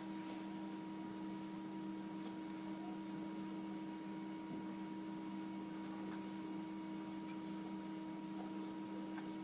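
Steady electrical hum of a few unchanging tones over faint room hiss.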